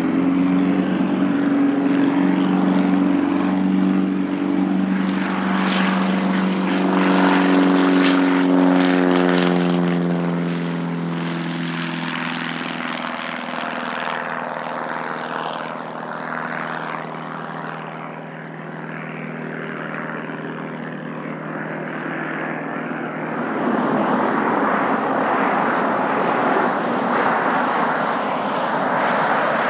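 Aerotek Pitts S-2A biplane's six-cylinder Lycoming engine at full throttle for takeoff. It rises in pitch and is loudest about six to ten seconds in as the plane climbs away, then fades. About three-quarters of the way through, a cut brings in a noisier, rushing propeller-plane sound from a Piper PA-28-181 on final approach.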